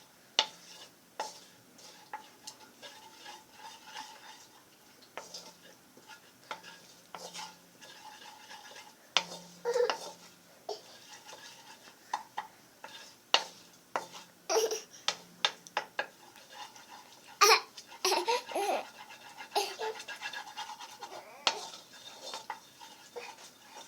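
Spoon stirring onions, ginger and garlic frying in oil in a pan: irregular clinks and scrapes of the spoon against the pan.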